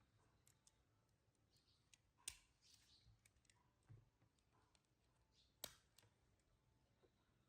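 Near silence broken by scattered faint clicks, with two sharper clicks about two seconds and five and a half seconds in.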